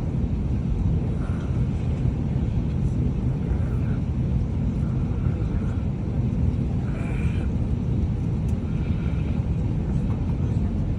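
Steady low rumble of a moving vehicle, constant throughout.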